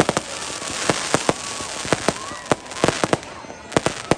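Fireworks going off: a quick, irregular string of sharp bangs, some in close clusters, over a crackling hiss that fades about three seconds in.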